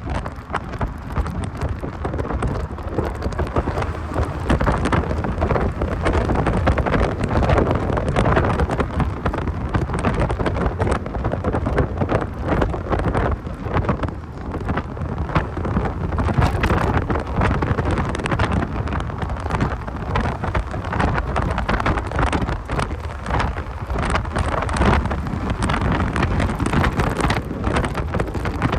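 Wind buffeting and crackling on the microphone of a moving 1990 Mazda Miata, with a steady low rumble of the car underneath and no distinct engine note.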